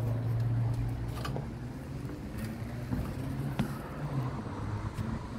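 Steady low hum of an engine running, with a few faint clicks and knocks.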